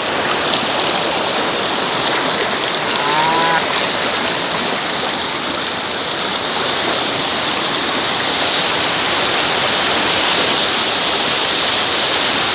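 Fast-flowing river water rushing steadily and loudly, churning around people wading chest-deep in the current.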